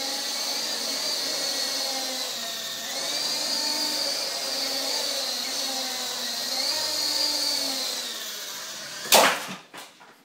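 Coaxial RC helicopter's motor and rotors whining in flight, the pitch rising and dipping with the throttle. About 9 seconds in, the helicopter crashes with one loud smack and a few smaller knocks, and the rotor sound stops.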